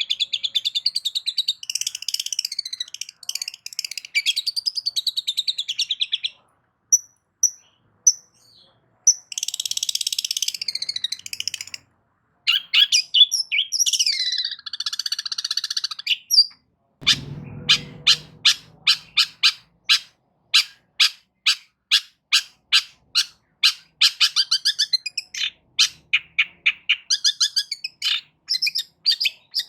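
Long-tailed shrike (cendet) singing: fast, harsh chattering phrases with mimicked notes, broken by short pauses, then a long run of sharp repeated notes about two a second. A brief low thump comes about halfway through.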